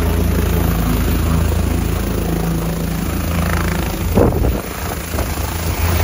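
Light helicopter's turbine and rotor running as it lifts off the pad into a hover: a steady low drone with a thudding rotor beat. About four seconds in, a sudden loud burst of noise briefly covers it.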